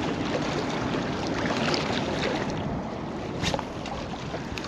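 Steady wind and open-water noise at the shoreline, an even rushing hiss, with small waves washing over the rocks. A sharp click sounds about three and a half seconds in.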